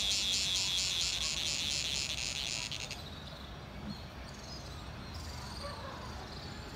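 An insect's loud, pulsing high buzz, about five pulses a second, that cuts off abruptly about three seconds in. Faint background noise follows.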